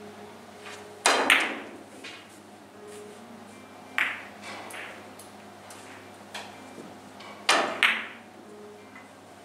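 Carom billiard balls clicking sharply against the cue and each other during shots: a close pair of clicks about a second in, a single click around four seconds, and another close pair near the end.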